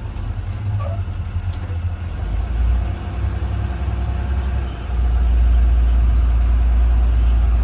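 Blue Bird Vision school bus engine and road rumble heard from inside the bus as it drives, a steady low drone that grows louder about five seconds in.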